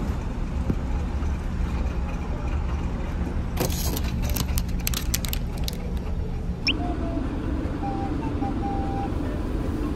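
Steady low drone of a ferry's engines, with a run of clicks and plastic rustling about four seconds in as an ice-cream bar is pulled from a vending machine's outlet flap. After about seven seconds the drone carries on under a rushing of wind on the open deck.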